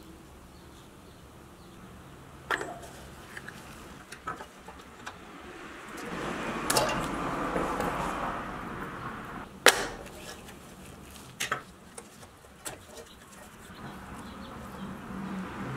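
Rusty metal toy-truck hubcaps and white-wall rings being pried off the wheels by hand: irregular clicks of metal on metal, with a stretch of scraping and rubbing in the middle and one sharp click soon after it, the loudest.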